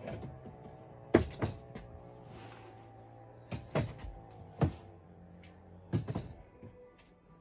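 Hard knocks and clunks of cordless drills being set into and handled on a wooden holder, about seven in all, some in quick pairs, over steady background music.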